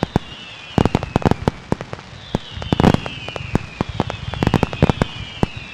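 Fireworks going off: irregular sharp bangs and crackles, the loudest about three seconds in, with several falling whistles.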